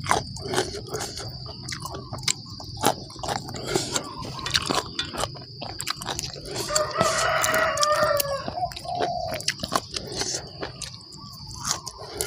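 Close chewing and crunching of spicy chicken-feet salad and raw greens, heard as many short wet clicks. A rooster crows once in the background about seven seconds in, a single call lasting around a second and a half.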